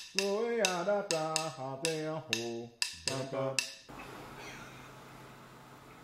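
A man's voice chanting a pentatonic line in short syllables over a pattern of sharp wood-block-like clicks. It cuts off suddenly about four seconds in, leaving room tone.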